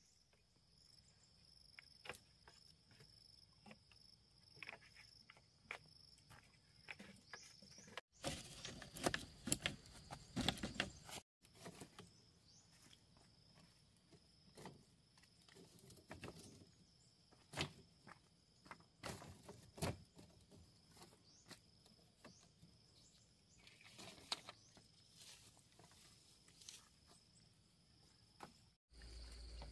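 Steady high-pitched insect drone with scattered knocks and scuffs, and a denser run of loud strikes about a third of the way in.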